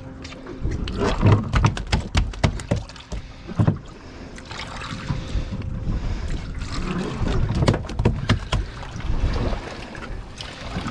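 A boat's engine running with a steady low hum, overlaid by a series of sharp knocks and thumps from handling on the boat, bunched in two spells.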